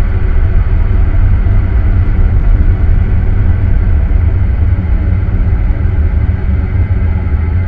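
Experimental ambient noise music: a loud, steady, dense low rumble, with a faint steady high tone held above it.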